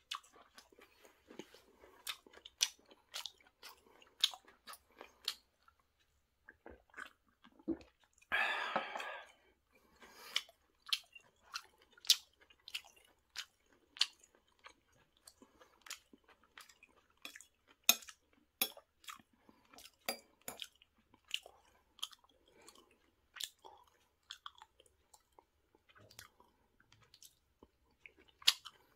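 A person chewing food close to the microphone, with many irregular crisp clicks and crunches and a brief rustle about nine seconds in.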